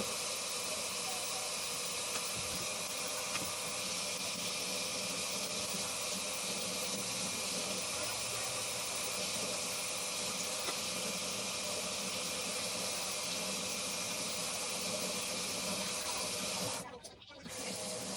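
Tap water running steadily into a sink while makeup brushes are rinsed, an even rushing hiss that breaks off briefly near the end.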